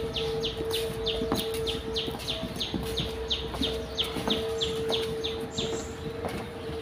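A bird chirping rapidly: short, high, falling chirps repeated about four times a second, over a steady low hum.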